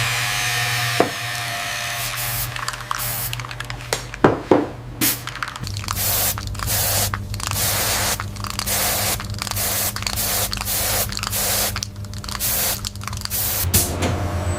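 Short bursts of hissing spray, about two a second, over a steady low machine hum, with a few sharp knocks before the bursts begin.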